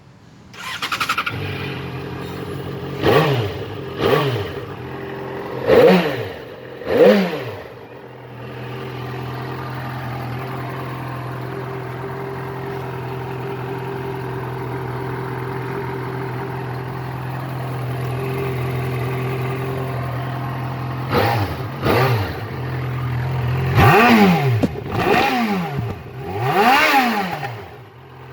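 Yamaha XJ6 Diversion motorcycle's inline-four engine idling, with sharp throttle blips. It revs quickly up and back down four times in the first several seconds, idles steadily for a long stretch, then is blipped several more times near the end.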